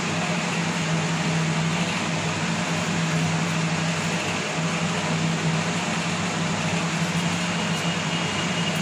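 A steady mechanical drone with an airy hiss and a constant low hum, unchanging throughout.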